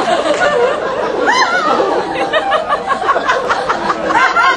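Audience laughing, in quick bursts of chuckles with some high whoops.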